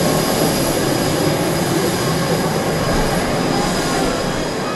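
Twin turbofan engines of an F/A-18 Super Hornet running as it taxis along the runway: a loud, steady jet noise with a faint high whine over it, slowly fading as the jet moves away.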